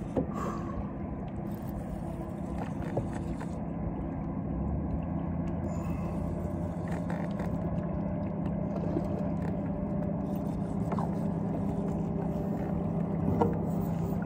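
Fishing boat's motor running steadily at trolling speed, a constant low hum, with a few light clicks and knocks from handling the rod and net.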